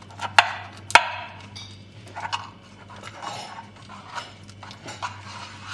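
Aluminium tube cake pan handled while being greased with butter by hand: two sharp metallic knocks in the first second, then lighter taps and the soft rubbing of a buttered hand on the metal.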